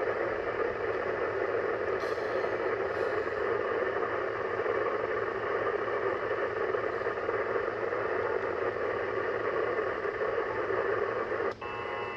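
Yaesu FT-710 HF transceiver's speaker giving out steady static hiss from a very noisy 28 MHz (10-metre) band. Near the end the sound cuts out for an instant as the radio is switched to the 17-metre band, and then steady whistling tones come in over the hiss.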